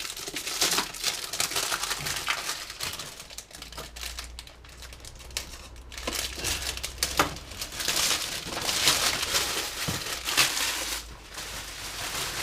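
Plastic packaging crinkling and rustling as it is unwrapped by hand, with short tearing crackles. It is quieter in the middle and busier in the last few seconds.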